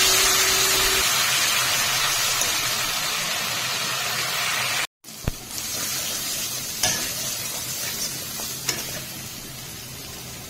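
Spice paste sizzling in hot mustard oil in a karahi as a wooden spatula stirs and scrapes it: the masala being fried down after a splash of water. The sizzle is loudest at first and grows quieter, cuts out for a moment about halfway, and a few spatula knocks sound in the second half.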